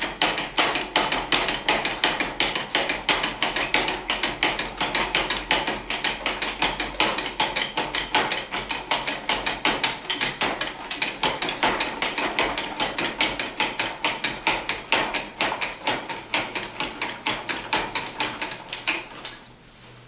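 Sunex 5222 2-ton engine crane's hydraulic ram being pumped by its hand lever, a rapid, regular metallic clicking with each stroke as the boom is raised. The clicking stops about a second before the end.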